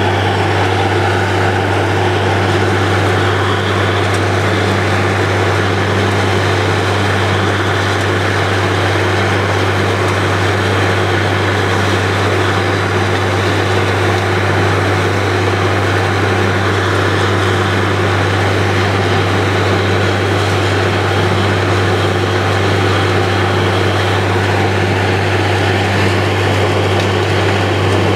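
Truck-mounted borewell drilling rig running steadily while drilling: a loud, even diesel drone with a strong low hum that does not change.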